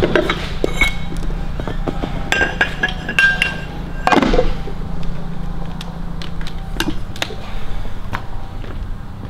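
A few sharp metallic clinks and knocks, some ringing briefly, over a steady low hum.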